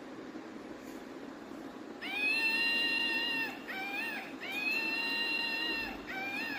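A cat meowing: two long, level meows of about a second and a half, each followed by a short one.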